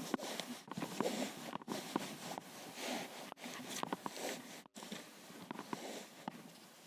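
Fabric rustling and soft handling noises as a patient-lift sling is spread and tucked under a patient lying on a bed, irregular and uneven throughout.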